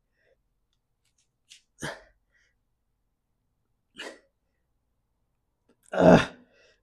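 A man's short, sharp breaths pushed out with each rep of bent-over dumbbell rear-delt flies, three about two seconds apart, the last much louder and straining.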